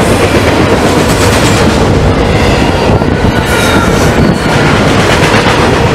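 Norfolk Southern double-stack intermodal freight train passing close by: steady, loud noise of the container well cars' wheels rolling on the rails, with a few faint high squealing tones around the middle.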